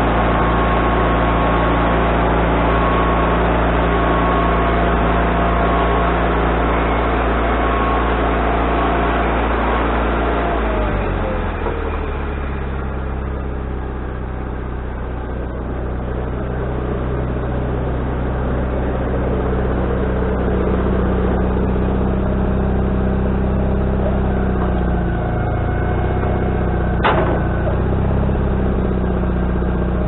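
Wood-Mizer LT40HD bandsaw mill running: the engine and band blade run hard for about the first ten seconds, then the blade winds down with a falling whine and the engine settles to a steady lower note. A single sharp knock near the end.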